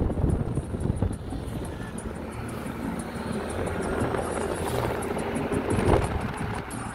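A car driving along, heard from inside the cabin: steady engine and tyre rumble with wind noise, briefly louder near the end.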